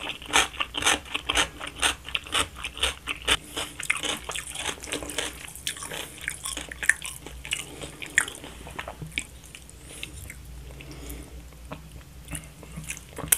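Close-miked chewing of a mouthful of thick stir-fried noodles: wet mouth clicks and smacks several times a second, thinning out about five seconds in, with scattered smacks after and a few more near the end.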